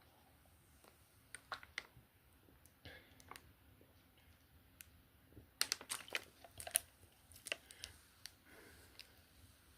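Scattered small clicks and crinkling handling noises, busiest about six seconds in.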